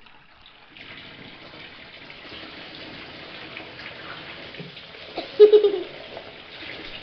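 Water running into a bathtub, a steady rush that starts about a second in. About five seconds in comes a short, loud pitched sound, the loudest thing here.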